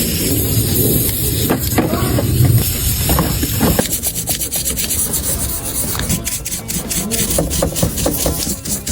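Rubbing and scraping from hand work on a part, irregular strokes at first, then quicker clicky strokes from about halfway through.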